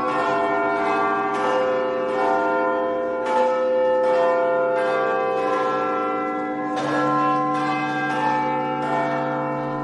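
Large tower bells ringing, a new strike about every second, each one's tone hanging on and overlapping the next.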